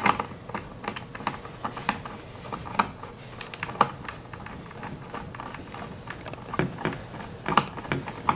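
Hand screwdriver turning small screws into the tail of an RC plane, giving irregular light clicks and taps.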